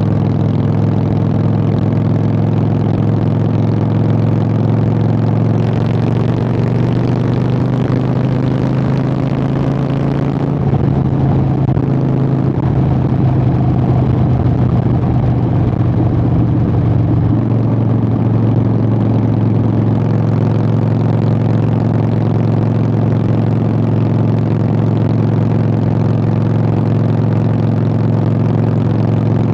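Harley-Davidson Sportster 883 air-cooled V-twin running through Vance & Hines Short Shots exhaust while riding, a steady deep exhaust note. Its pitch climbs slowly and changes step about ten and again about seventeen seconds in.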